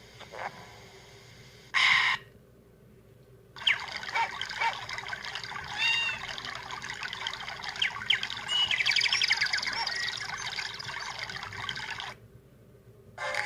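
Samsung SCH-V122 mobile phone speaker playing ringtones: a short tone about two seconds in, then after a brief pause a nature-sound ringtone of chirping birds over trickling water that lasts about eight seconds and stops. The next ringtone begins right at the end.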